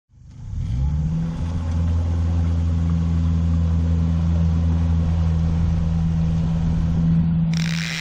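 Boat outboard motor running under way, its low drone rising in pitch over the first second or so and then holding steady. Near the end a bright clattering sound effect cuts in.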